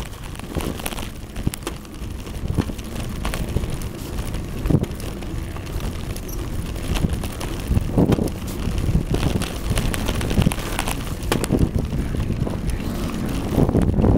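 Wind buffeting the microphone of a camera carried on a moving bicycle, a low rumble, with scattered short clicks and knocks throughout; the rumble grows louder near the end.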